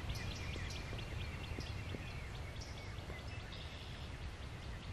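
Birds chirping outdoors, a run of short high chirps repeating several times a second with a few short falling notes, over a steady low rumble.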